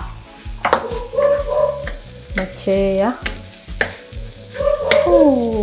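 Wooden spatula stirring and scraping diced vegetables and peas around a non-stick wok as they fry, with a sizzle and repeated sharp knocks of the spatula against the pan.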